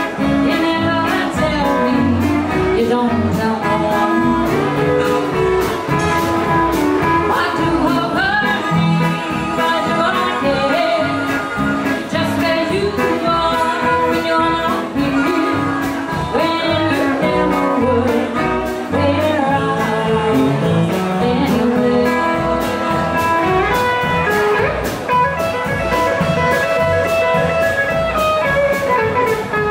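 Live blues band playing: electric and acoustic guitars, drums and harmonica, with a woman singing.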